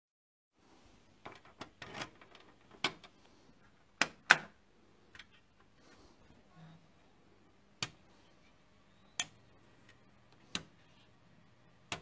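Sharp clicks of a custom PC front panel's switches being worked: a key switch, a flip-cover toggle switch and toggle switches, about a dozen clicks in all, with the loudest pair about four seconds in. After a click about nine seconds in, a faint low hum starts as the computer powers up.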